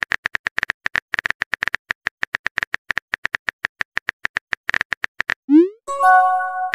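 Rapid, irregular keyboard-typing clicks from a texting-story app's typing sound effect. Near the end comes a short rising swoosh, then a held electronic chime.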